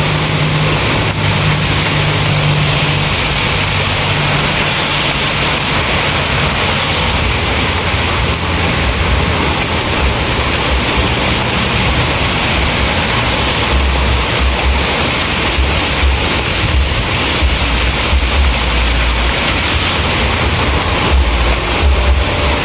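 Steady heavy rain, an even unbroken hiss of falling drops, with a low rumble underneath that grows stronger in the second half.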